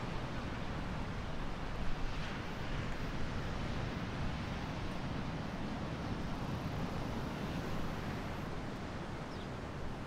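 Steady wind buffeting the microphone over the continuous wash of ocean surf, with a single brief thump about two seconds in.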